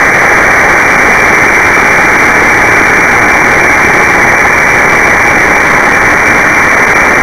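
Spitfire's Rolls-Royce Merlin engine and airflow as a steady, loud rushing drone through an aerobatic loop, heard muffled over the cockpit intercom.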